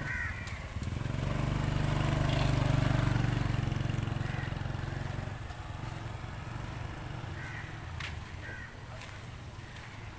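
Low rumble of a passing vehicle that swells to its loudest about two to three seconds in and then fades, with a few short bird calls scattered through.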